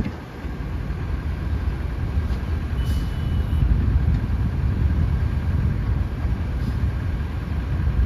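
Sumitomo SH250-6 hydraulic excavator's diesel engine running steadily under load as it swings a full bucket of soil: a low rumble with a faint steady whine over it.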